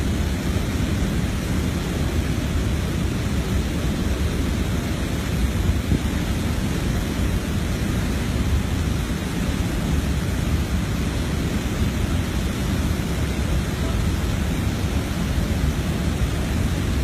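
Rushing whitewater: a loud, steady, unbroken noise, deepest in the low range.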